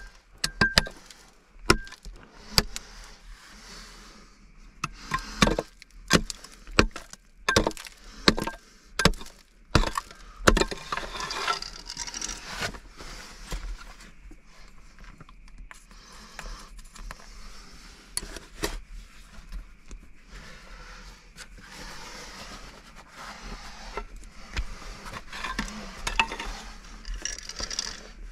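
Repeated sharp knocks and clinks at an uneven pace, with longer stretches of scraping about a third of the way in and again near the end.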